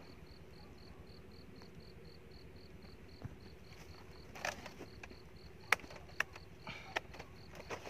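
An insect chirping in an even, steady pulse, like a cricket. From about four seconds in, a few sharp clicks and short rustles from a wire-mesh trap in a plastic sack being handled and set down. The loudest click comes near six seconds.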